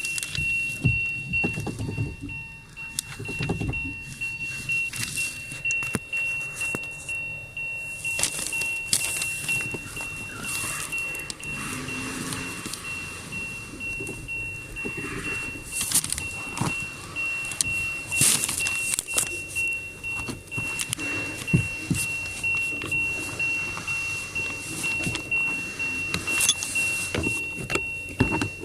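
Metal tools and parts clinking and knocking as a steering rack's universal joint is reconnected, in irregular clicks and small impacts. A steady high-pitched pulsing tone sounds in the background.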